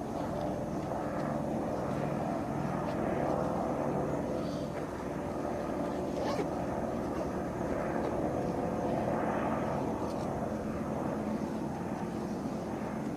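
Small helicopter in flight, a steady drone of engine and rotor.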